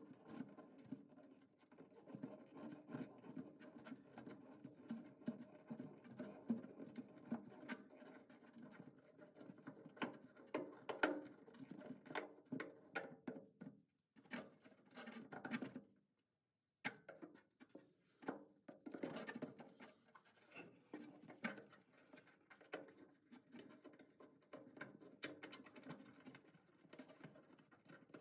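Faint clicking and scraping of hand tools and metal parts as Phillips-head screws are worked out from behind an early Ford Bronco's kick panel: many small irregular ticks and taps. It cuts to silence twice, briefly, about halfway through.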